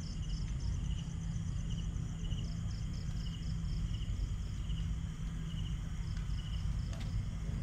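Crickets chirping: short, evenly repeated chirps about every two-thirds of a second, with a faster pulsing trill higher up, over a steady low rumble.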